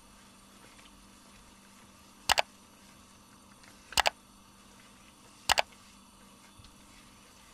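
Three mouse-click sound effects, each a quick double click, about a second and a half apart, from a subscribe-button animation. Under them a faint steady hum.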